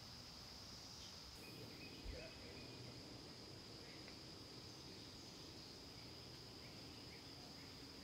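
Steady high-pitched drone of a cicada chorus, with a single soft low thump about two seconds in.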